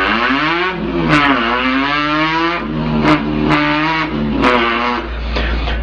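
A boy's voice imitating a car engine revving, its pitch climbing and dropping again and again like an engine pulled through its gears, with a few short clicks in between.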